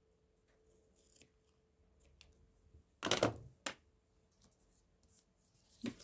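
Washi tape torn from its roll with a short rip about three seconds in, followed by a light tap. Soft paper handling follows near the end.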